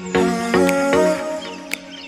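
Background music with sustained chords and a beat, coming in loudly just after the start.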